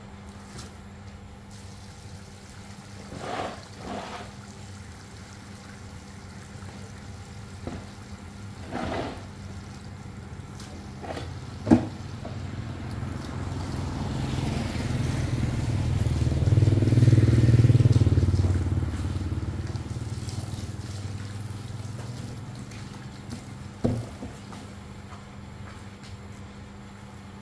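A motor vehicle passing by: its engine sound builds over several seconds, peaks a little past the middle, then fades away. A few knocks are scattered through, with a single sharp knock shortly before the vehicle swells in.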